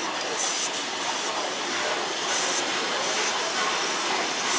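Peppercorn A1 Pacific steam locomotive No. 60163 Tornado moving slowly under steam: a steady hiss of steam with short, louder bursts of hissing about once a second.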